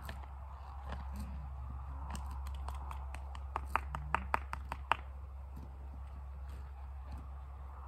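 A quick run of small sharp clicks and taps from saddle tack being handled on a saddled horse, loudest in a burst of about seven clicks a little past the middle, over a steady low rumble.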